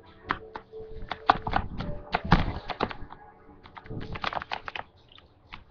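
Pet lovebird making rapid, short, sharp chirps and clicks in two bursts: a long run starting about a second in and a shorter one around four seconds.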